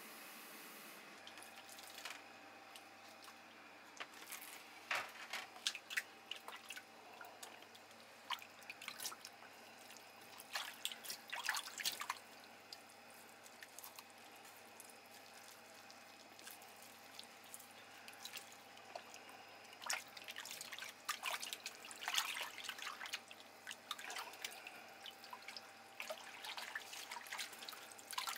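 Hands working a skein of salmon roe in a basin of water to separate the eggs: irregular bursts of small splashes and drips as the roe is squeezed and rubbed under water.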